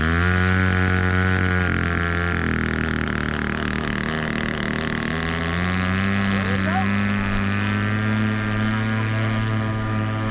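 Radio-controlled model airplane engines running in flight, more than one at once: one drones at a steady pitch while another drops, then rises and holds about halfway through.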